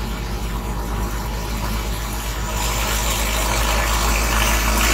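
Car engine and road noise heard from inside the cabin: a steady low rumble that slowly grows louder, with a hiss that rises about halfway through.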